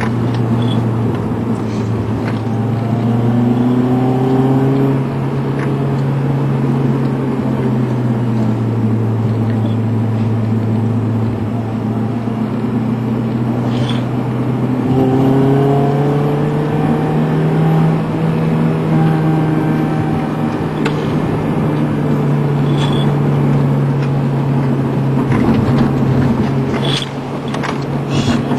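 Car engine droning steadily under cruising load, heard from inside the cabin over tyre and road noise. Its pitch sags for several seconds, then rises about halfway through as the car speeds up, with a few light clicks.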